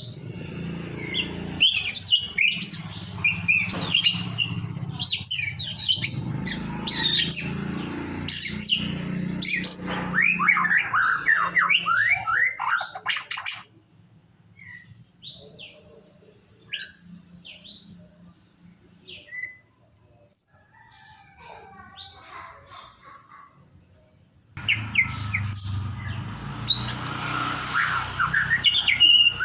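White-rumped shama (murai batu) singing a varied song of rapid whistled notes and glides. About 13 s in, the song thins to scattered single sharp whistles, and the full song starts again near the end.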